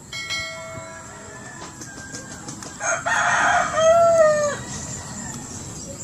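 A rooster crowing once, about three seconds in, its call arching up and down in pitch; it is the loudest sound. Near the start a brief ringing tone sounds.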